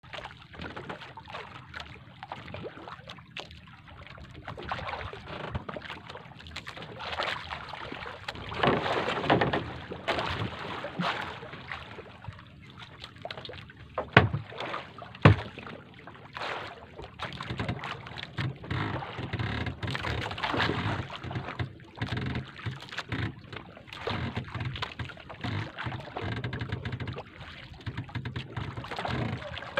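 Water sloshing and slapping against a small wooden outrigger boat at sea, with wind on the microphone; two sharp knocks stand out about halfway through.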